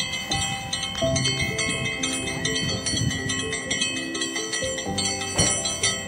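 Background music with bright, bell-like chiming tones.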